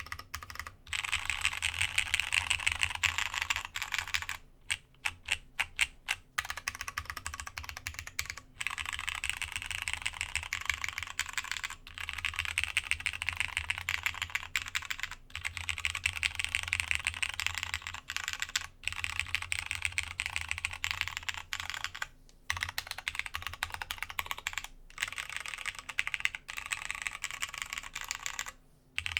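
Masjewerke K-III mechanical keyboard, plateless with Cherry MX Brown switches, DCS keycaps and a polycarbonate internal, typed on in fast continuous runs with several brief pauses. About five seconds in, the flow breaks into a handful of slower single key presses.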